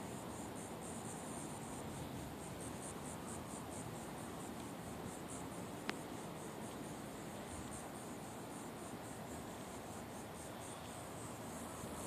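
Insects chirping in a high, evenly pulsed trill that repeats a few times a second and runs on steadily, with a single faint click about halfway through.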